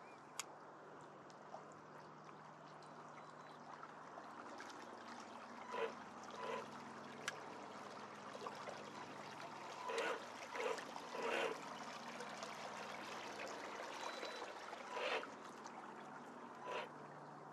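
Faint water lapping and trickling around the kayak hull and dock pilings. Several short honking bird calls come in from about six seconds in, a few seconds apart.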